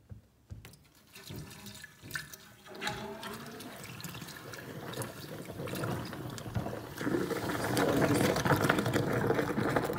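Liquid drain opener poured from a plastic jug into a stainless-steel sink's drain, splashing and gurgling down the hole. Over the last few seconds it gets louder as the chemical starts foaming and fizzing in the clogged drain.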